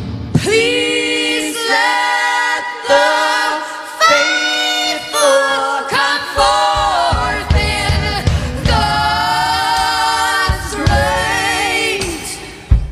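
Several women singing a song in multi-part harmony, held notes and gliding lines, with little or no accompaniment for the first half; low thuds join in about halfway through.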